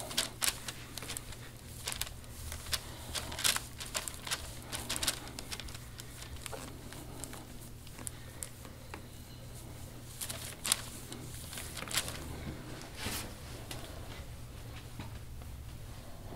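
Scattered short clicks and crackles as an elbow presses and grinds slowly into a man's bare upper back during deep-tissue work. They come thickest in the first few seconds and again around ten to thirteen seconds in, over a low steady hum.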